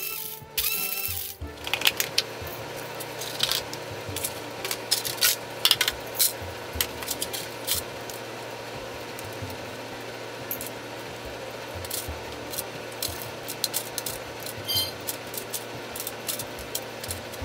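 Small Hamilton Beach blender's motor running with a steady hum, chopped HDPE bottle-cap pieces clattering and ticking against the jar as they are ground.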